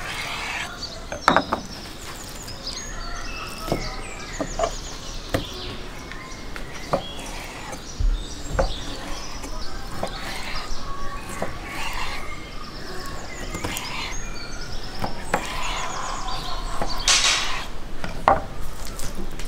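Knife slicing raw kidneys on a wooden cutting board, the blade knocking on the board at irregular intervals, with small birds chirping throughout.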